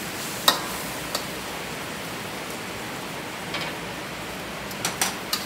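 Metal ladle-spatula clinking against a wok several times while meat miso is stirred and tossed, the loudest clink about half a second in and a quick run of them near the end. Under it runs a steady rushing noise from the gas burner and kitchen.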